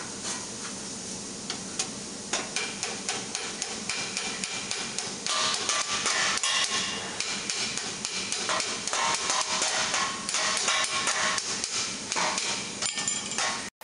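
Hand hammer striking red-hot sheet steel over a stake in quick, uneven blows, raising the cuff of a gauntlet; the steel rings after some strikes. Other hammering in the workshop mixes in behind.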